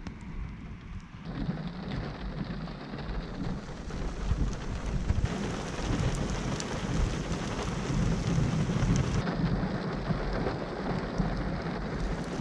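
Heavy thunderstorm rain with a low rumble, growing louder about four seconds in; only rain, no hail.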